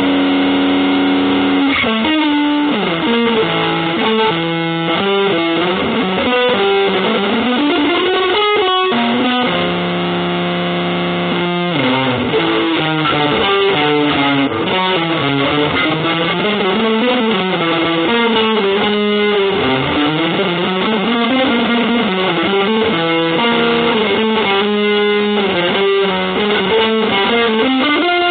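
Music: electric guitar played through distortion and effects, in fast winding melodic runs, settling on held notes for a couple of seconds about ten seconds in before the runs resume.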